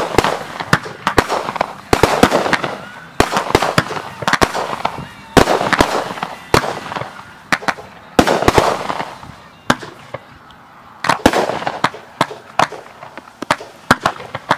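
Aerial fireworks going off in quick succession: sharp bangs followed by bursts of crackling, coming in clusters every second or two, with a short lull about ten seconds in.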